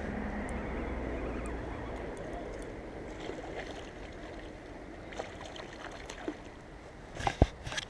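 A steady low rumble, like road traffic passing, fading over the first few seconds. Then scattered light clicks and a sharper knock near the end as the spinning reel and rod are handled.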